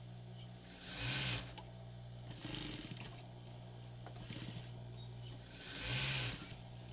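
Sewing machine motor humming steadily, with two short runs of fast stitching, about a second in and near the end, and fainter handling noise of cloth and machine between them, while a shirt cuff is sewn on.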